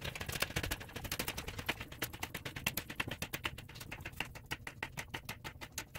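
Hydraulic floor jack being pumped to lift a vehicle: a fast, regular run of sharp clicks, about eight a second.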